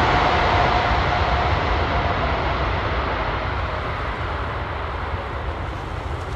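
Airbus A380's four jet engines roaring as it lands, the engines' whine fading out about a second in and the whole roar slowly dying away.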